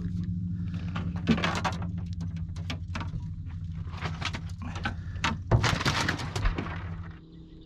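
A cooler lid opening and a crappie going in onto ice: clunks, rattles and rustling from the lid, the ice and the fish being handled, over a steady low hum that stops about seven seconds in.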